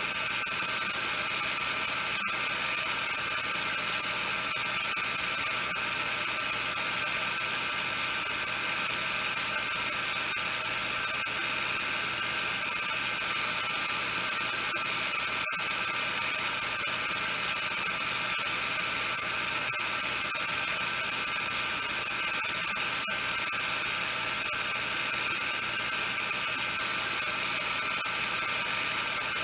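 A steady, high-pitched hiss with a constant whine through it, unchanging apart from a few momentary dropouts.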